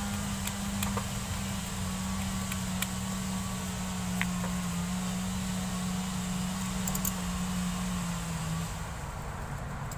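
A steady low machine hum that drops away near the end, with a few sharp metallic clicks of a socket tool on the bolts of an EGR valve being fitted.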